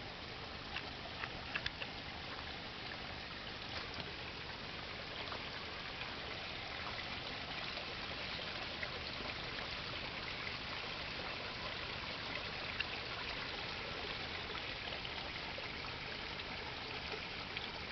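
Creek water trickling and running steadily, a little louder after the first few seconds.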